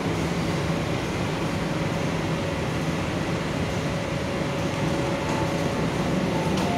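Steady rumble and hiss of an MTR South Island Line S-train at the station platform, with faint short tones near the end.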